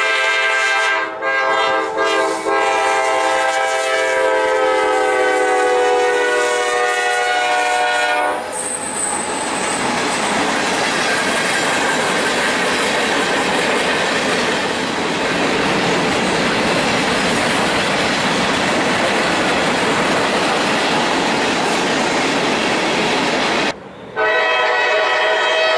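A loud horn sounding several notes at once, in a few blasts with short breaks and its pitch sagging slightly. It gives way to a long, steady, loud rushing noise for about fifteen seconds, and the horn sounds again near the end.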